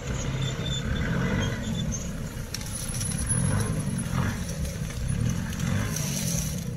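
Nissan Patrol GR Y61's engine running at low revs as the lifted 4x4 crawls forward off-road, its pitch rising and falling slightly with the throttle.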